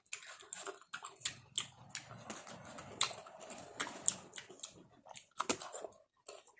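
Close-up eating sounds: chewing with a rapid run of small wet clicks and smacks.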